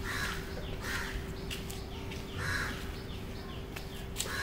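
Crows cawing, four harsh caws spaced unevenly, over a steady low hum and faint, quick repeated chirps from another bird.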